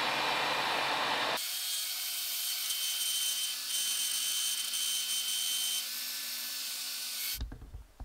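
Disc sander running and grinding a poplar block down to a marked line, a steady hiss with a high whine through the middle; it stops abruptly about seven seconds in.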